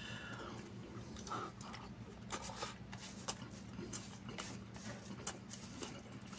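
Soft eating sounds of chicken biryani eaten by hand: faint chewing and lip smacks, with light clicks as fingers scoop rice off a plastic sheet, over a low steady hum.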